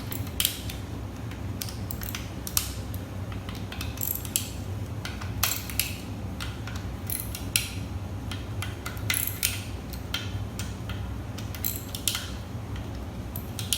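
Ratchet wrench cracking loose and backing out the valve body bolts of a Ford 4R75E transmission: runs of quick pawl clicks and sharp metallic clicks at irregular intervals, over a steady low hum.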